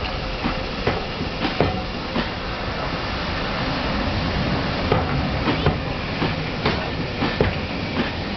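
Railway passenger coaches rolling past close by, with a steady rumble and irregular sharp clicks and knocks from the wheels running over the rail joints.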